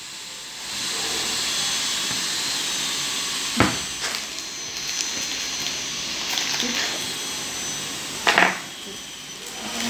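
Steady rushing noise of a small machine or air blower, with a sharp knock twice, a few seconds apart.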